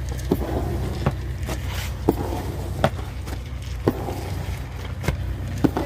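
Flat iron scraper knocking and scraping against the pan, about seven irregular strikes, as thickened sugarcane syrup is worked to set into shakkar (powdered jaggery). A steady low mechanical hum runs underneath.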